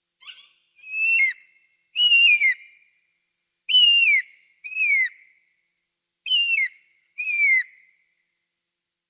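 Eagle giving a series of about seven high, clear cries, each sliding down in pitch and lasting about half a second, some coming in close pairs.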